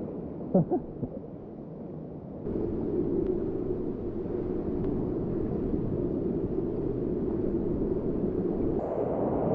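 Steady low rushing of sea water and wind in a sea cave, setting in firmly a couple of seconds in, after a brief short voice-like sound.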